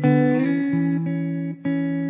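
Background music: strummed guitar chords, a new chord struck at the start and another about one and a half seconds in, left ringing.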